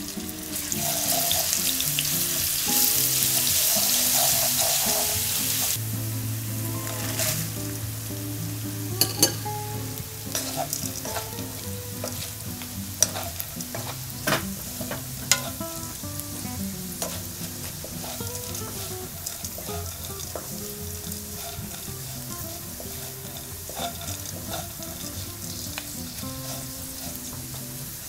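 Stir-frying in oil in a frying pan: minced garlic and then small dried anchovies. A loud sizzle for the first six seconds drops off suddenly to a quieter frying hiss, with scattered clicks of wooden spatulas against the pan as the anchovies are tossed.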